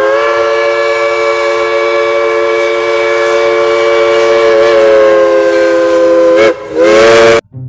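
Steam locomotive No. 630's whistle blowing a chord of several tones: one long blast of about six and a half seconds, then a short second blast near the end.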